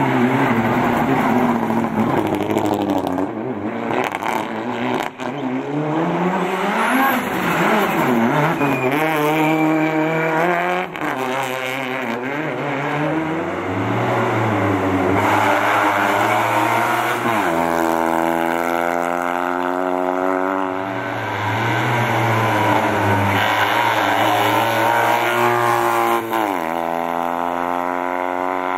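Competition cars, among them a Mitsubishi Lancer Evolution and a small Fiat 126p, driven hard up a tarmac hill-climb one after another. The engines rev high, pitch climbing through each gear and dropping sharply at the shifts.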